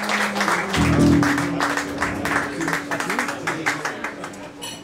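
Audience applause and clapping fading away, with a low note from the band's amplified instrument held over it from about a second in.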